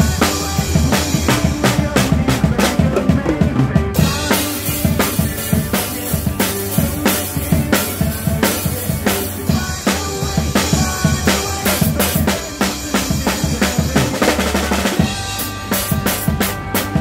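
Acoustic drum kit played live: quick kick, snare and cymbal strokes over backing music with a steady bass line from a PA speaker.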